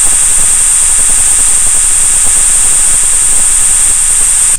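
A steady, loud electronic hiss with a high whistling band, cutting off suddenly near the end. It is the CNC simulator's sound of the lathe's Z axis travelling to home position.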